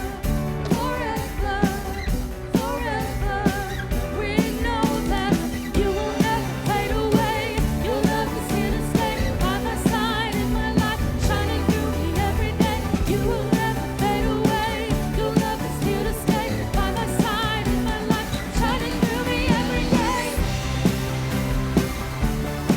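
Church worship song: a voice singing a wavering melody over steady drum beats and bass.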